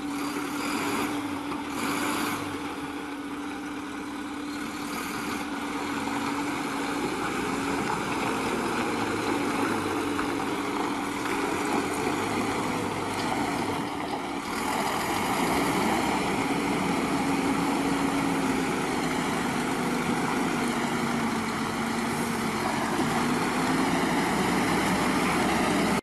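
Diesel engine of a heavily loaded logging truck running at low revs while it creeps around a tight bend, its pitch rising and falling slightly as the driver works the throttle.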